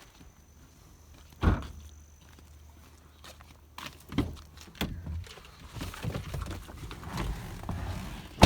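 Footsteps and several thuds and knocks while getting into a pickup truck, with a loud thump about a second and a half in and a sharp slam at the very end, like a truck door shutting.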